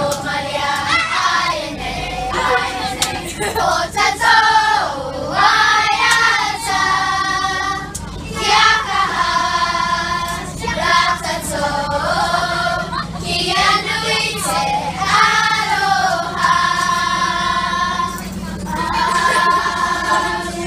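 A group of girls singing together in unison, loud phrases rising and falling through the whole passage.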